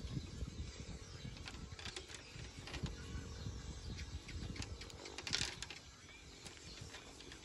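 Handling noise of a chained baby macaque wriggling in a hand on a bamboo-slat platform: rubbing and bumping with scattered light clicks and a rattling metal chain. A brief sharp noise about five and a half seconds in.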